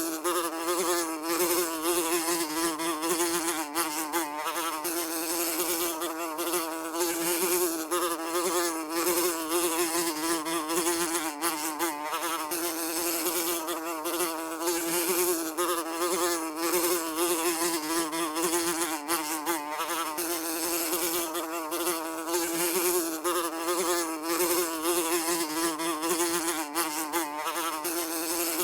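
A fly buzzing without a break: a steady drone with a stack of overtones, its pitch wavering slightly as it flies, under a constant crackly hiss.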